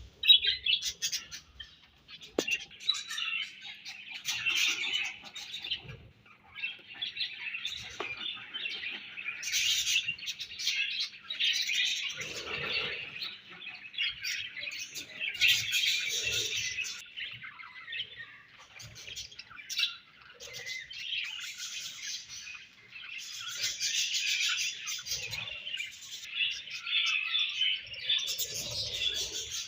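Budgerigars chirping and chattering together, in bouts of a few seconds with short pauses between.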